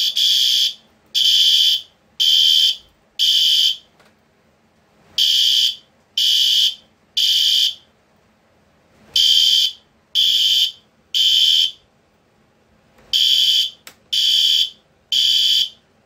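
Three System Sensor SpectrAlert horn strobes (a Classic, an Advance and an L-Series) sounding in unison, kept in sync by an MDL sync module. They sound the temporal code-3 evacuation pattern: three short, high-pitched horn blasts, a pause of over a second, then repeated.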